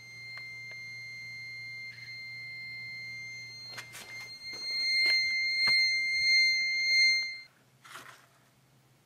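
Digital multimeter's continuity beeper sounding one steady high-pitched beep, with a few handling clicks; it gets louder for its last three seconds and cuts off sharply about seven and a half seconds in.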